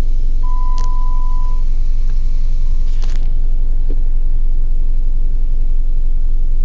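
2011 Jeep Wrangler's 3.8-litre V6 idling with a steady low rumble while it misfires, shaking the vehicle. A beep of about a second sounds about half a second in.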